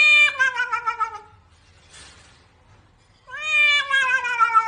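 A cat yowling twice: two long, drawn-out meows that slide down in pitch, each about two seconds long, with a pause between. The cat is protesting at being held for a bath.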